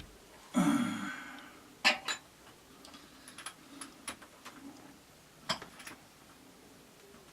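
Hand tools and small metal parts clinking during a motorcycle oil change: one loud clatter about half a second in that rings off briefly, then a few sharp clicks and light ticks.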